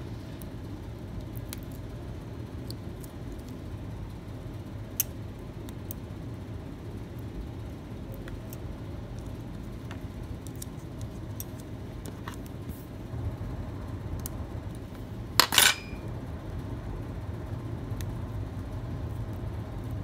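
Small clicks and taps of hand tools and parts on a phone being put back together, with one sharp click about five seconds in and a louder short metallic clatter about fifteen and a half seconds in, over a steady low background hum.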